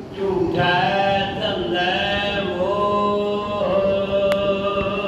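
Male voices chanting a Sikh devotional hymn together, in long drawn-out melodic notes that glide slowly from pitch to pitch.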